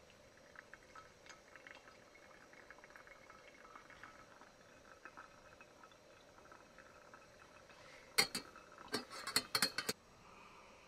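Camp cookware clinking: a run of faint ticks and crackles, then several sharp clinks about eight to ten seconds in.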